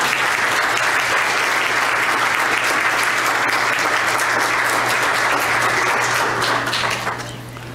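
Congregation applauding: a steady round of clapping from many hands that dies away about seven seconds in.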